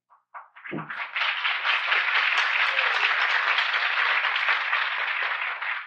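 Audience applauding, breaking out about half a second in and holding steady, then starting to die away near the end.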